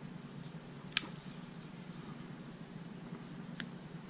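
Gloved hands handling a pen's packaging tube while opening it with a thin blade: one sharp click about a second in and a fainter click near the end, over a low steady hum.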